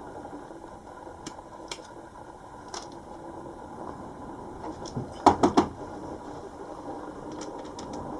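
Small clicks and ticks from tools and parts being handled at close range while wiring a micro switch, with a quick run of four loud sharp clicks about five seconds in, over a steady background noise.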